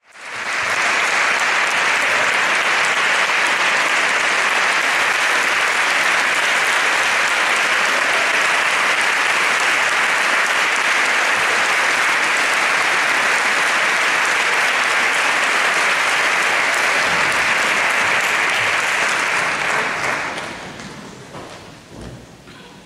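Audience applauding steadily in a concert hall, dying away about twenty seconds in.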